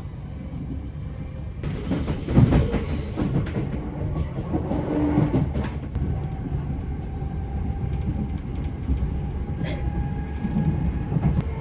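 Class 387 electric multiple unit heard from inside the carriage as it gathers speed: a steady rumble of wheels on rail with scattered sharp clicks. A faint steady whine joins about halfway through.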